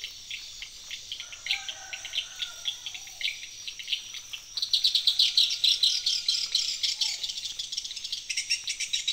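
Small birds chirping over a thin, steady insect buzz. The chirping grows much denser and louder about halfway through.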